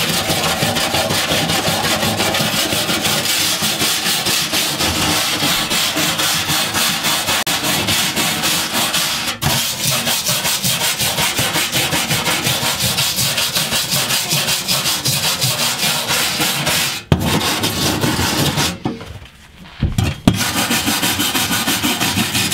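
A hand brush scrubbing a rusty sheet-steel car trunk floor in fast back-and-forth strokes, scuffing off loose rust flakes before a rust-converting primer goes on. It breaks off briefly twice, then pauses about three-quarters of the way through and starts again.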